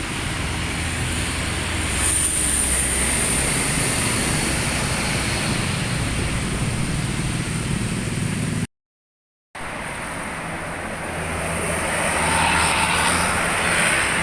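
Buses driving past on a road: engine rumble and tyre noise that swell as each one passes. Two passes are heard, split by a sudden break of silence about nine seconds in.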